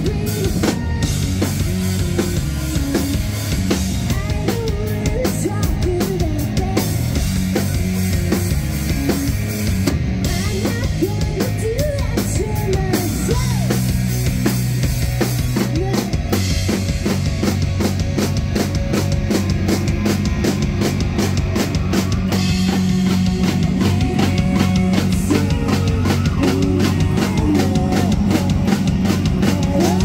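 Live rock band playing loud and steady: electric guitars, bass guitar and a drum kit, heard from the audience floor of a small club.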